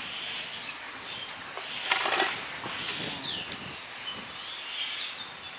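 Scattered bird chirps, with a brief noisy handling sound about two seconds in.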